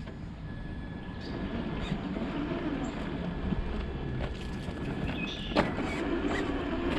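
Traxxas TRX-4 RC crawler's electric motor and geared drivetrain whining as it crawls, with scattered clicks and knocks, the loudest about five and a half seconds in.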